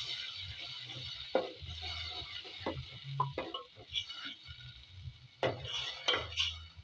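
Spoon stirring and scraping in a cooking pot, with scattered knocks and clinks against the pot over a steady low sizzle from the curry base.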